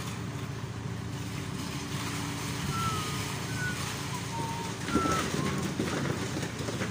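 Carmix self-loading concrete mixer's diesel engine running steadily at idle. A few short high chirps come in the middle, and shovel knocks and scrapes come about five seconds in and near the end.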